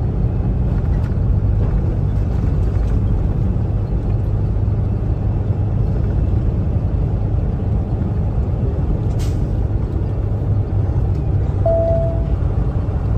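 Steady low engine and road drone inside a Kenworth T680 semi-truck cab cruising at highway speed. A brief click sounds about nine seconds in, and a short single-tone beep a little later.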